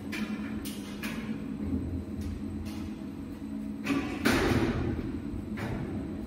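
Large double-column welding positioner's electric drive humming steadily with a low whine. About four seconds in, a louder rushing noise swells and fades over a second or so.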